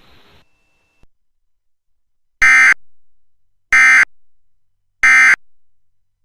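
Emergency Alert System end-of-message signal: three short digital data bursts of the "NNNN" EOM code, about 1.3 seconds apart, starting about two and a half seconds in. They mark the close of the alert message.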